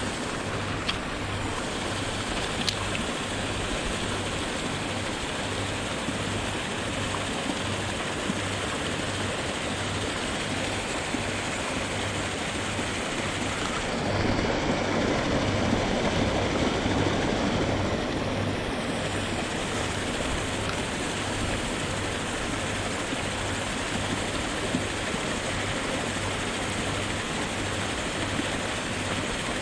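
Steady rush and splash of water churned by a fishing pond's aerators, with a low, even throb about twice a second. The water sound swells for a few seconds in the middle.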